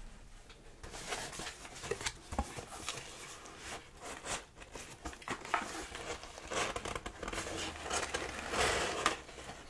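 Close-up rustling and crinkling of paper packaging as a subscription box is opened and its wrapped contents unpacked by hand, with small taps and crackles. It starts about a second in and goes on in uneven handfuls.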